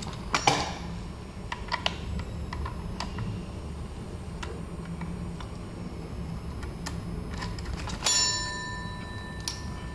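Small metal clicks and ticks of a hex key and brake cable being worked loose at an electric scooter's disc brake caliper. Near the end a metal part is struck with a clang that rings on for about two seconds.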